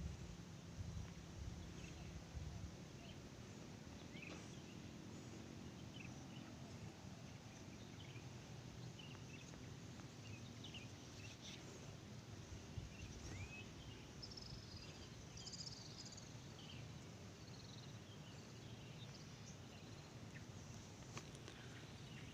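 Faint outdoor ambience: many short, scattered high chirps and calls from wild animals over a low steady rumble.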